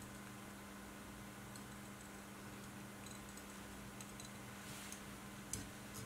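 Faint, scattered small ticks and clicks of a metal whip-finish tool turning thread around the head of a fly in the vise, the sharpest click about five and a half seconds in, over a steady low hum.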